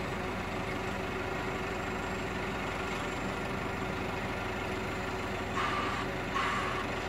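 Diesel engine of a Hydrema 912ES articulated dump truck idling steadily. Near the end a reversing alarm starts beeping, twice.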